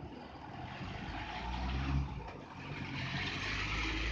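Motor vehicle engine running close by, a steady low hum that sets in about a second in, over street noise.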